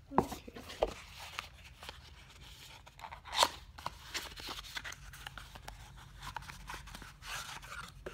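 Cardboard watch packaging being handled and opened: scattered scrapes, rustles and taps, with one louder sharp sound about three and a half seconds in.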